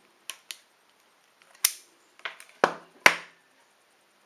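Sharp clicks and snaps of a hand wire stripper and cutter closing on speaker wire insulation, about six in all, two light ones early on and the loudest three in the second half.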